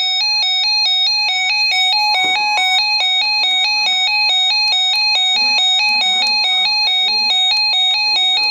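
Weather radio alert alarm: a loud electronic warble rapidly alternating between two pitches, sounding on a flash flood warning.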